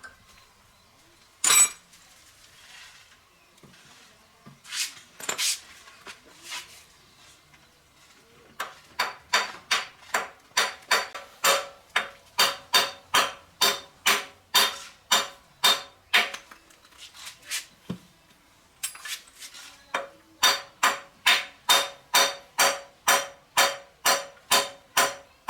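Metal striking metal in a steady rhythm, about three ringing taps a second, in two long runs with a short pause between, after a few single knocks.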